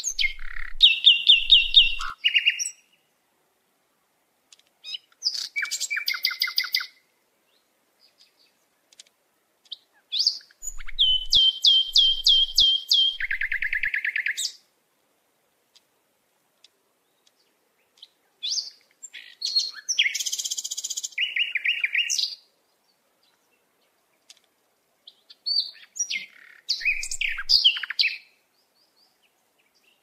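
A songbird singing five phrases a few seconds apart. Each phrase is a quick run of repeated high notes that drops to a lower trill.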